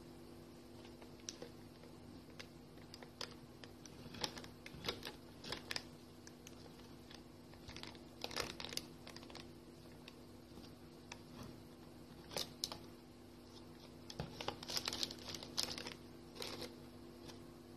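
Knife cutting a tray cake on baking paper: faint scattered crunches and parchment crinkles come in small clusters as the blade presses through and the paper is held. A low steady hum runs underneath.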